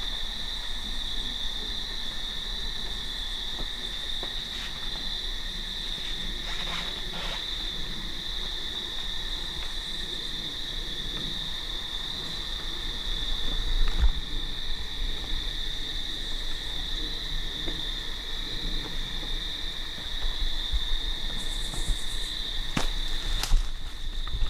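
Steady, high-pitched chorus of evening insects, one unbroken shrill drone, with a few sharp knocks and clicks near the end.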